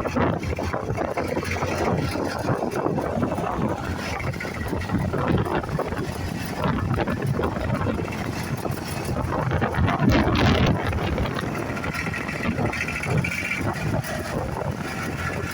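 Tractor diesel engine running steadily, with wind buffeting the microphone.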